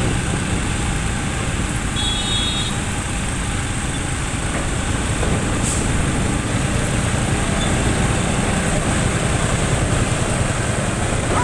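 Motorcycle riding slowly in traffic on a wet road: steady engine and road rumble with a constant hiss. A short high beep sounds about two seconds in.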